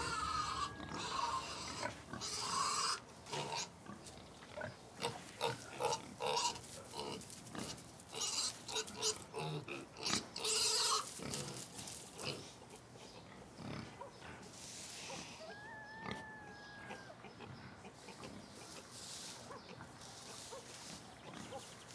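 Pig grunting and snuffling in straw, with rustling as it moves, busiest in the first half. A brief thin high call comes about three-quarters of the way through.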